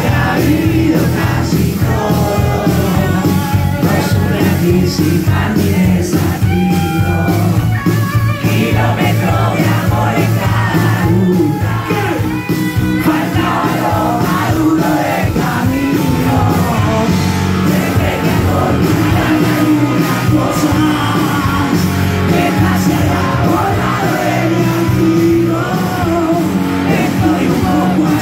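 Live rock band playing: a male lead vocalist singing over electric guitars, electric bass and a drum kit.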